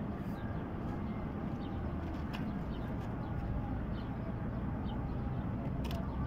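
Faint, short, high bird chirps scattered over a steady low rumble of background noise, with a few small clicks.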